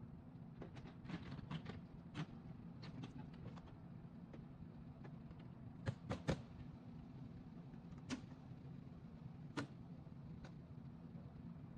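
Plastic trim panel on a Tesla Model Y frunk being pressed and snapped into its clips: scattered light clicks and knocks, the sharpest pair about six seconds in, over a steady low hum.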